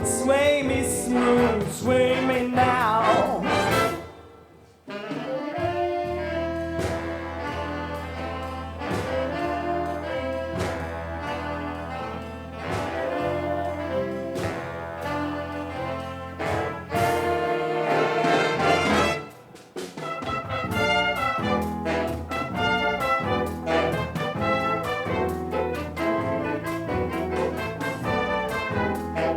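Big band playing an instrumental passage with trumpets, trombones and saxophones over bass and drums. The music breaks off for about a second twice, near the start and past the middle.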